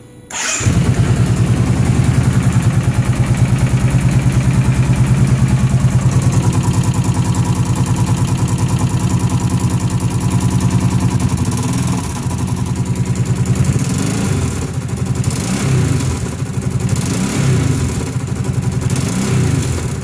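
An engine starting about half a second in and then running with a fast, even beat, rising and falling in speed in the second half as the throttle is worked. The owner hears an unexplained ticking noise in it.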